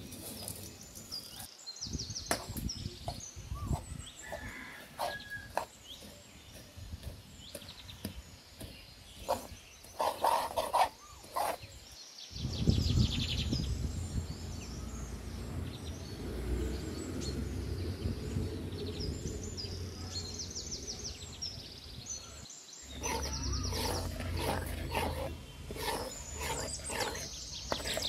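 Small birds chirping and twittering repeatedly. A metal spoon scrapes and taps in a metal kadai as melting sugar is stirred. For about ten seconds in the middle, a low steady rumble sits under the birdsong.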